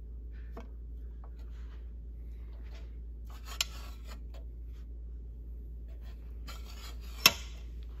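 Steel strap damper plate pivoting on its bolt over the air holes of a steel stove door, scraping and rubbing against the metal, with a sharp metallic click about three and a half seconds in and a louder clack near the end as it swings shut.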